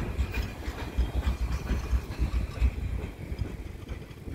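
A train passing close by: its last cars go past with an uneven low rumble of wheels on the rails, fading away as the train leaves.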